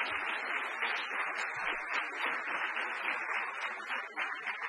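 Audience applauding at the end of a talk, a steady patter of many hands clapping that thins out to scattered claps near the end.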